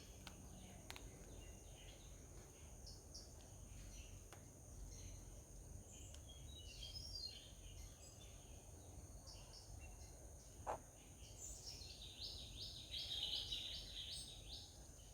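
Small birds chirping in short, high calls, thickening into a louder run of rapid chirps near the end, over a steady high insect drone. One short falling call stands out about two-thirds of the way in.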